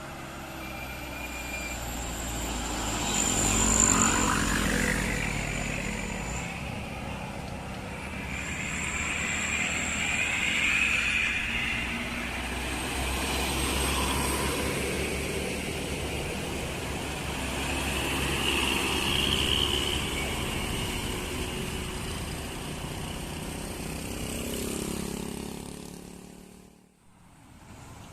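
Traffic climbing a hill road: vehicles such as tour buses pass one after another, their engine and road noise swelling and fading about four times. Near the end the sound drops out abruptly for a moment.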